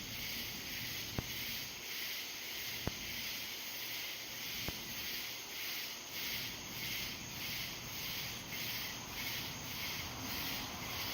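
A high-pitched chorus of night creatures in the trees, pulsing evenly at about two beats a second; the listener wonders whether it is some kind of tree frog. Three faint clicks come in the first five seconds.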